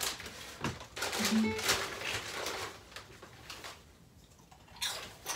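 Homemade cigar box fiddle, built without bow cutouts, being bowed: a brief pitched note about a second in, among a few knocks from handling the instrument and bow.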